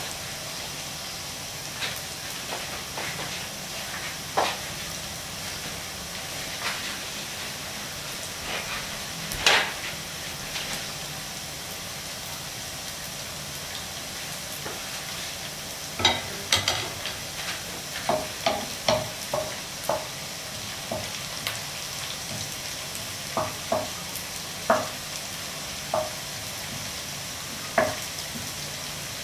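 Thinly sliced shallots deep-frying in oil in a nonstick wok, a steady sizzle with scattered pops. From about halfway, a run of short knocks and scrapes as a wooden spatula stirs them against the pan.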